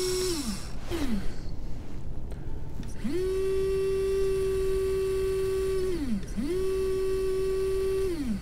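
Small electric water pump motor in an RC fire truck whining in short runs. It winds down about half a second in and blips once briefly, then runs for about three seconds and again for about two, each time spinning up fast and sliding down as it stops. The pump is not building pressure, which the builder suspects is air trapped in the water system or a loose pipe connection.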